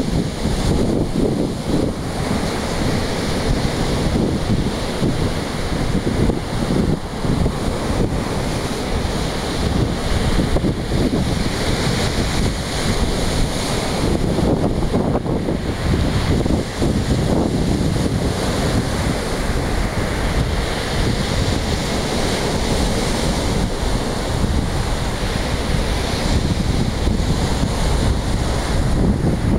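Wind buffeting the microphone over the wash of sea surf, a steady noisy rumble that swells and eases.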